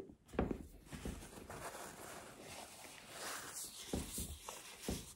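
A mouthful of ham and cheese sandwich being chewed with the mouth closed: irregular soft mouth noises with a few low thumps.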